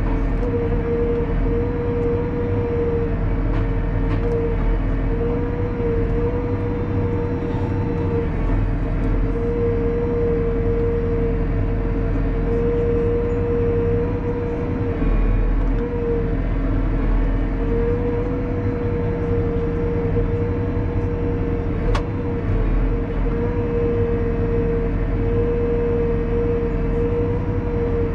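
Valtra 154e tractor's diesel engine running steadily under crane hydraulic load as the Kesla 144ND crane is worked, heard from inside the cab, with a steady whine that wavers slightly. A single sharp click late on.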